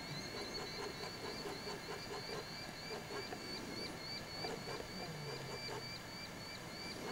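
Frogs calling in a steady chorus: quick repeated calls, several a second, that run on evenly.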